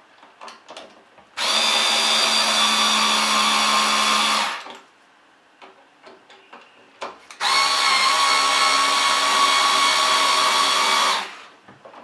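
Small cordless electric screwdriver driving switch mounting screws into an electrical box. It runs in two steady, whining bursts, about three seconds and nearly four seconds long, with light clicks between them.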